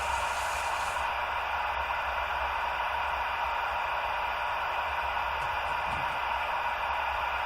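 Steady hiss like static, with a faint constant electrical hum underneath.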